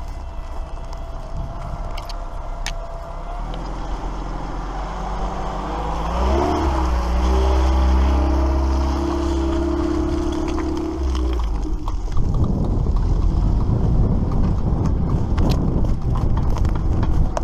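An engine speeds up with a rising pitch, runs at a steady higher speed for several seconds, then gives way to a rough, steady rumble of travel noise from about twelve seconds in.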